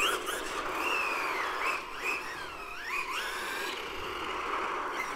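XLF F11A 1/10 RC car being driven in short bursts, its brushless motor whining up and down in pitch with the throttle over a steady hiss of tyres and running gear.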